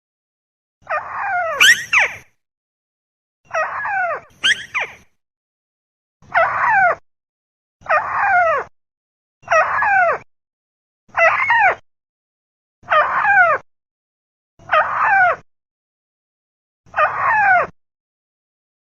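Lure recording of a 'burung tikusan' rail calling: a series of short, downward-sliding calls repeated about every second and a half to two seconds, the first few coming in quick doubles.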